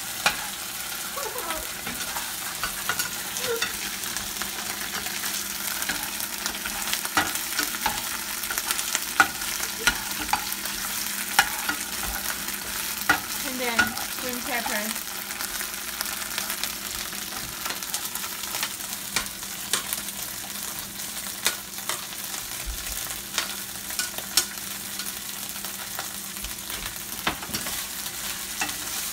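Chopped onion, garlic and ginger sizzling in oil in a nonstick frying pan, stirred with a spatula that clicks and scrapes against the pan many times. There are a few short squeaks near the start and around the middle.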